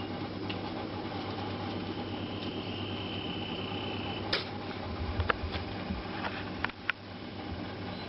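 Puppies scuffling and wrestling on a floor: scattered clicks and soft knocks over the second half, over a steady background hum. A faint thin high tone is held for about two seconds before the clicks start.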